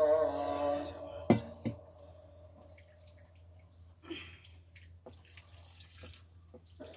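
A chanted call from a mosque fades out in the first second. It is followed by two sharp knocks and then faint dripping and trickling of water, with a short splash about four seconds in.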